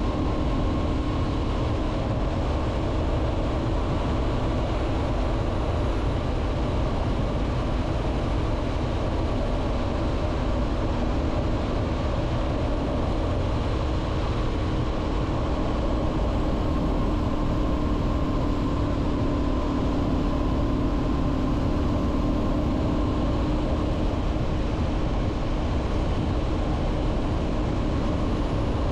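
Honda CB500F's 471 cc parallel-twin engine running steadily at cruising speed, with wind and road noise.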